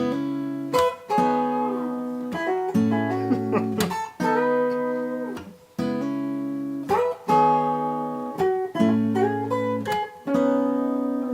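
Guitar instrumental break: strummed chords that ring and change every second or two. A second, electric lead guitar plays over them, with notes that bend in pitch.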